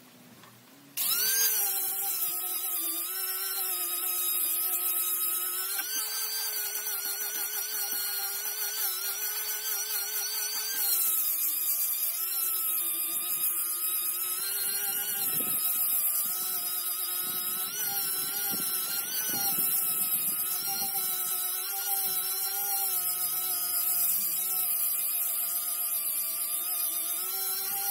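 A handheld electric power tool switches on about a second in and runs steadily, its motor whine wavering slightly in pitch as it is worked over a paulownia wood slab.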